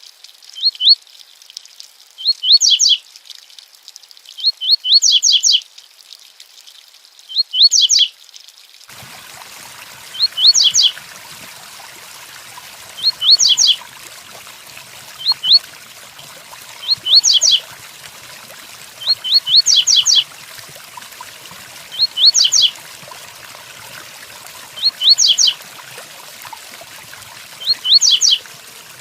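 A double-collared seedeater (coleiro) sings the 'tui-tui' song: short phrases of two to four quick, high, rising notes, repeated every two to three seconds. Steady rain noise comes in about nine seconds in.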